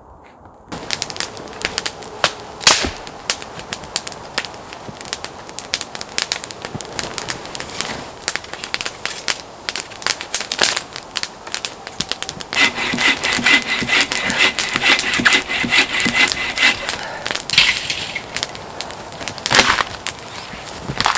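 Wood fire crackling and popping, with irregular sharp snaps. From about twelve to seventeen seconds in, a steady high whistling tone sounds alongside it.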